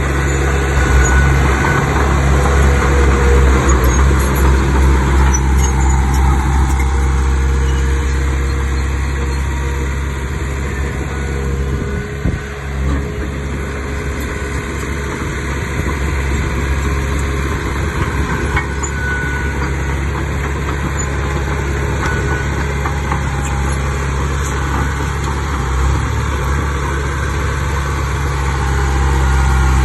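Diesel engine of a D31 bulldozer running steadily at work, its level rising and falling a little.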